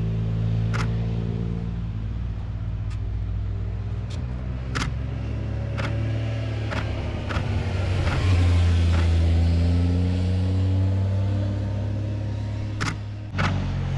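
Cars passing through a bend one after another, their engine notes rising and falling as they go by, with a new one swelling about halfway through and another arriving suddenly near the end. Sharp clicks sound at intervals over the engines.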